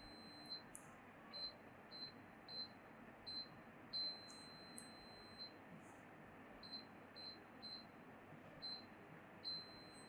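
Revolo electronic keypad deadbolt beeping as its number keys are pressed: a long beep ends about half a second in, then four short beeps about half a second apart, a long beep of about a second and a half, three more short beeps, a fourth a little later, and another long beep starting near the end. A faint steady hiss lies underneath.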